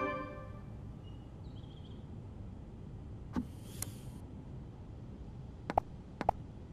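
Virtual-reality interface sounds: a few sharp clicks from taps on a virtual number keypad, one about halfway through and two close together near the end, with a brief soft hiss between them over a low steady hum. A chime is dying away as it opens.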